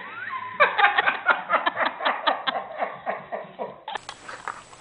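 A person laughing in a quick run of short, rhythmic laughs that starts about half a second in and fades out after about three seconds.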